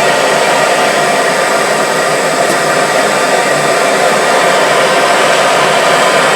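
A gas torch flame running with a steady, loud rushing hiss while it heats the graphite mold before the silver pour.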